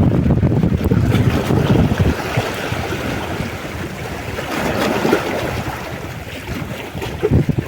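Wind buffeting the microphone over the wash of sea waves, the gusts heaviest in the first two seconds and again near the end.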